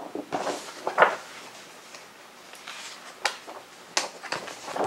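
Pages of a large paper booklet being turned and handled: irregular rustling swishes of paper with scattered sharp clicks and taps, the loudest a knock about a second in.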